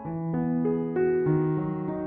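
Background piano music: a slow, gentle tune of held notes, a new note or chord about every half second over a moving bass line.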